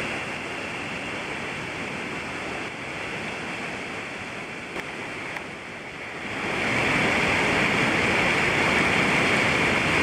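Steady rushing of a whitewater river over rocks, growing louder about six seconds in.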